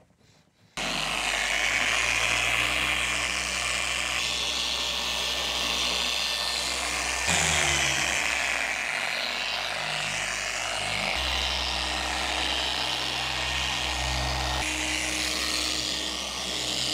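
Electric machine polisher running with its pad on car paint: a steady motor hum with a hiss from the pad. The motor's pitch jumps at abrupt cuts every few seconds and briefly winds down partway through.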